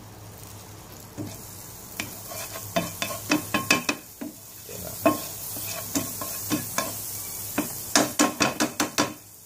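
Butter sizzling as it melts in hot oil in a non-stick wok, with a steady hiss. A spatula scrapes and taps against the pan in quick runs of strokes, about two to four seconds in and again near the end, while spreading the butter.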